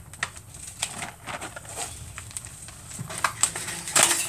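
Clear plastic toy packaging crinkling and crackling as it is handled. Irregular sharp crackles, loudest in a burst near the end.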